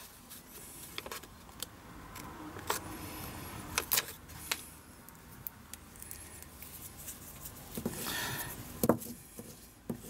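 Small scissors cutting a paper pattern apart: a few scattered sharp snips and clicks, with a rustle just before a louder click near the end.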